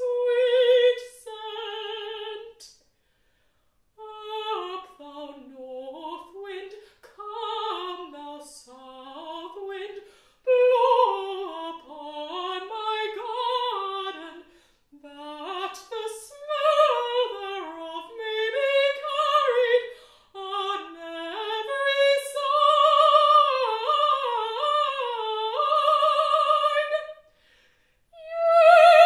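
Unaccompanied female mezzo-soprano singing in an operatic style with vibrato, phrase after phrase, with a pause of about a second near the start and another near the end.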